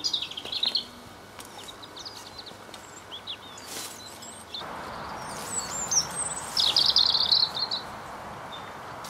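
Small songbirds chirping and singing outdoors, with a louder rapid trill about seven seconds in. A single knock comes about four seconds in, and a steady rushing noise sets in from about halfway.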